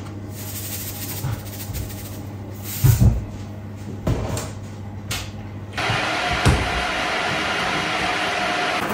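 Kitchen background: a steady low hum with a few knocks, the loudest about three seconds in. About six seconds in it gives way to a steady rushing noise.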